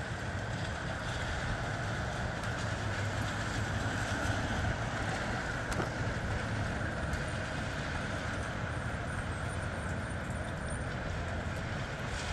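Steady wind blowing through trees and shrubs, with a low rumble underneath.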